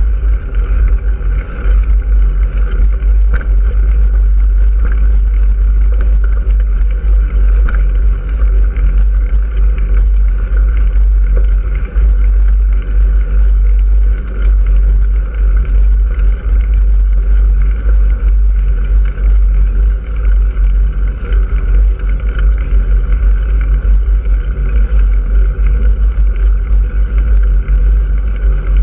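Steady, loud wind rumble on the microphone of a camera riding along a road, with a constant vehicle drone underneath.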